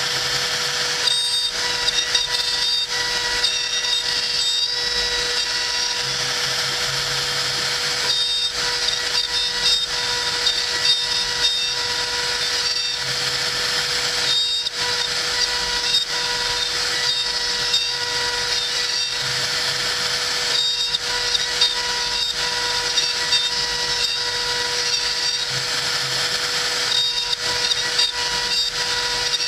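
CNC router spindle running at a steady speed while its bit mills hardwood: a constant pitched motor hum under a dense rasping cutting noise that eases briefly every several seconds.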